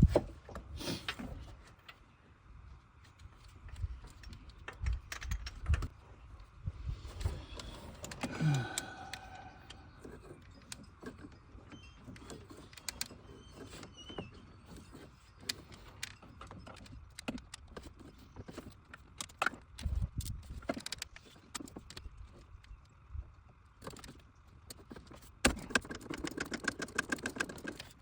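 Hand tools clinking and knocking under the hood while the number 2 spark plug is removed, with a ratchet wrench clicking rapidly near the end.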